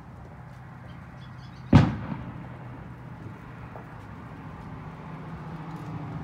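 A single firework bang about two seconds in, sharp and loud, followed by a brief echo, over a low steady hum.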